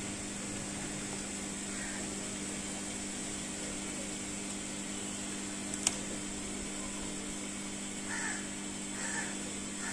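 Steady background hum, with one sharp click about six seconds in and a few short, faint bird-like calls near the end.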